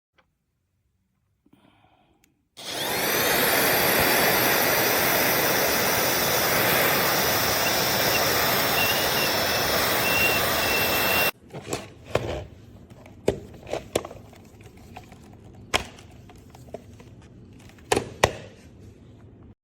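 PRETTYCARELIFE cordless stick vacuum cleaner running steadily, starting about two and a half seconds in and cutting off suddenly a little past halfway. Scattered sharp knocks and clicks follow.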